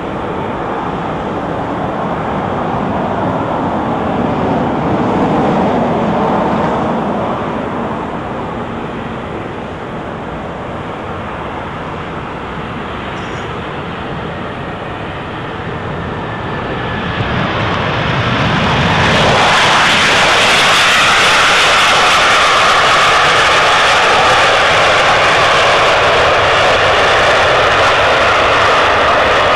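Airbus A319's IAE V2500 turbofan engines passing low on landing approach, a steady jet roar that swells and falls in pitch as the aircraft goes by. After touchdown, about eighteen seconds in, the roar rises sharply into a louder, hissing rush that holds steady during the rollout, typical of reverse thrust on landing.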